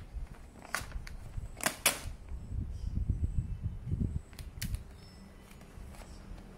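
Blue adhesive vinyl wrap film being handled and smoothed by hand over a motorcycle seat cowl: about five sharp crackles of the film, with soft rubbing and handling noise in between.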